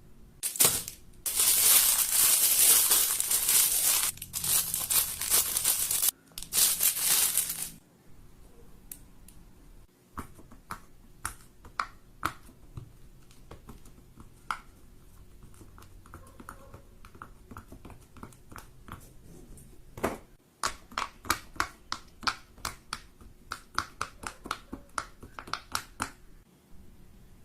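Fidget toys being handled: several seconds of loud crinkling and rustling, then a long run of sharp clicks and pops that comes faster near the end.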